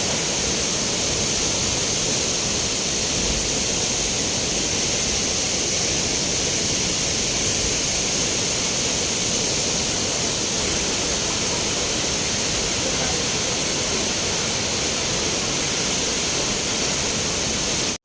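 Spring water rushing steadily, a constant even wash of water noise that cuts off suddenly at the very end.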